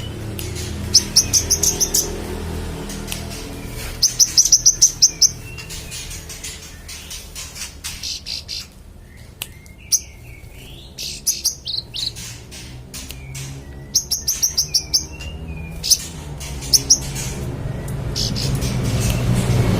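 A manggaran songbird singing in full, energetic voice: bursts of very fast, high, rattling trills about a second long, again and again, with softer chirps in between. A low hum runs underneath and grows louder near the end.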